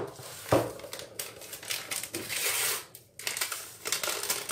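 A vanilla sachet crinkling and rustling as it is torn open and emptied into a stainless steel mixing bowl, with a sharp knock at the start and another about half a second in.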